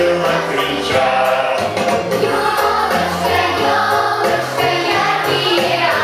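A large children's choir singing a Christmas song with instrumental accompaniment.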